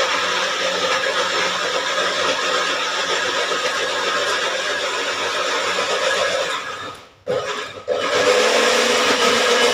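Electric kitchen blender running steadily, grinding shallots, ginger, turmeric, garlic and galangal into a spice paste. A little before seven seconds in the motor winds down and stops, gives one short burst, and starts up again about a second later.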